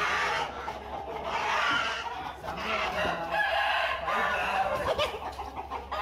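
A flock of chickens, aseel roosters among them, clucking and calling over one another in a continuous, overlapping din.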